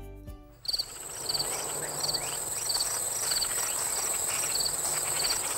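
Crickets chirping in regular short pulses, about two or three a second, over a steady high-pitched insect trill.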